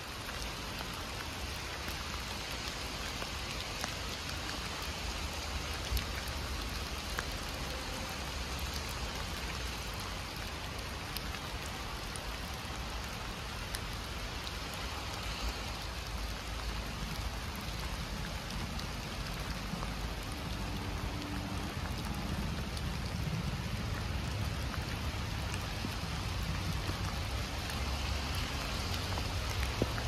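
Heavy rain falling in a forest, with many separate drops ticking close by over a steady hiss. A low rumble underneath grows slightly louder in the second half.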